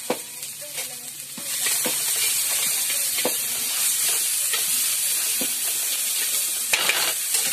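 Sliced onions sizzling in a hot wok on a gas burner. The frying hiss gets much louder about a second and a half in, and a metal ladle knocks and scrapes against the wok roughly once a second as they are stir-fried.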